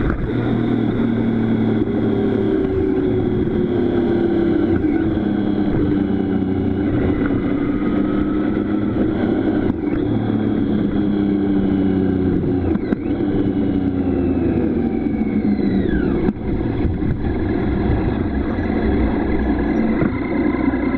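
Motorcycle engine running at road speed with wind rushing over the bike, heard from a camera mounted on it. The engine pitch slowly falls and rises, with a few brief dips in level along the way.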